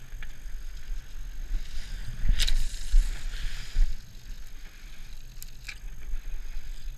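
Small boat moving across open sea: water hissing and splashing along the hull, swelling for a couple of seconds, over a steady low rumble of wind on the microphone, with a few sharp clicks or knocks.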